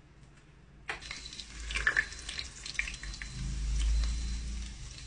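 Beaten egg being poured from a bowl into a multicooker's inner pot, with scattered light clicks and drips and a low rumble swelling near the middle.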